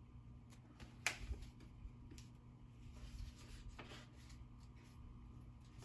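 Paper page of a picture book being handled and turned: a few soft rustles and light taps, the sharpest about a second in, over a faint steady hum.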